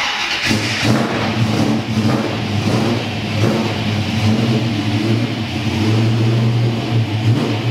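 The 351 cubic-inch Ford V8 of a 1968 Mustang Fastback idling steadily, freshly started.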